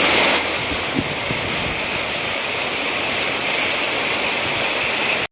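Heavy rain pouring down, a steady hiss, which cuts off suddenly at the end.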